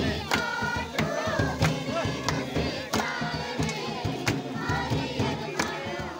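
A group of girls and women singing a Mundari welcome song (durang) together, with a sharp beat keeping time about every two-thirds of a second.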